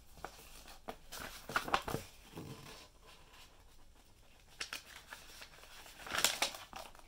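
Pages of a paper instruction booklet being flipped and turned by hand, rustling in several short bursts.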